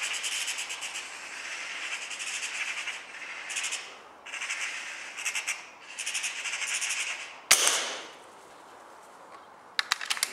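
Magpie chattering in harsh, fast rattling bursts with short pauses between them, then a single loud shot with a brief echo, the loudest sound here. A few quick, sharp clicks come near the end.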